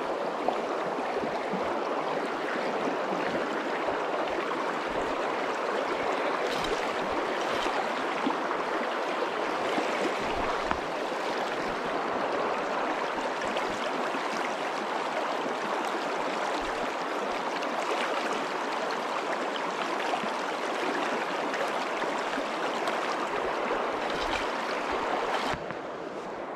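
Steady rush of a shallow river running over stones, with no break. It drops slightly and turns duller about a second before the end.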